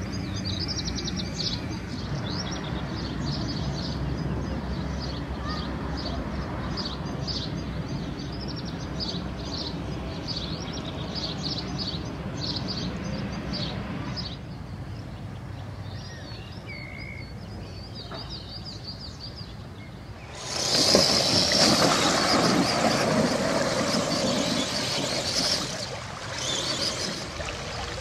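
Small birds chirping over a steady low outdoor rumble. About twenty seconds in, a loud rushing noise starts and lasts about five seconds before dropping back.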